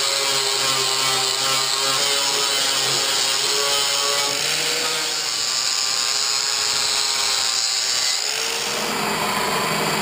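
Electric angle grinder with a flap disc grinding rust off the steel edge of a car fender: a steady motor whine under a loud grinding hiss. About eight seconds in, the grinding hiss drops away and the motor note rises.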